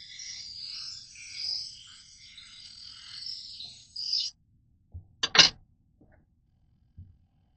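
A knife blade grinding against a sharpening stone wheel, a scratchy, uneven hiss that stops abruptly a little past four seconds in. It is followed by two sharp knocks in quick succession, with a couple of faint ticks after them.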